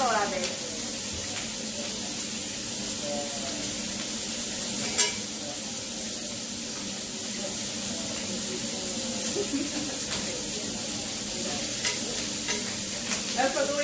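Strips of pork sizzling steadily on a tabletop grill, with one sharp click about five seconds in.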